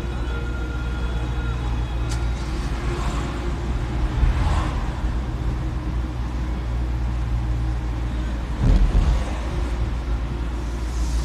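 Car engine and road noise heard from inside the cabin while driving slowly, a steady low hum. A loud low thump about nine seconds in is the loudest moment.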